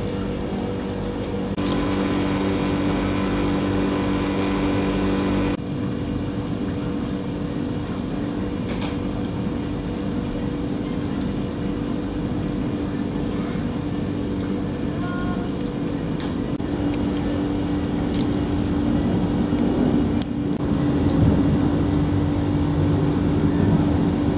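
A steady motor hum, its tone changing abruptly twice in the first few seconds.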